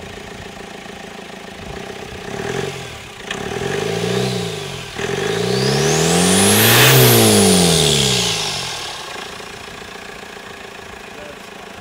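Cummins R2.8 four-cylinder turbo diesel revved from idle: two short blips, then a longer rev that peaks about seven seconds in and falls back to idle. The turbocharger whistle rises and falls with the revs.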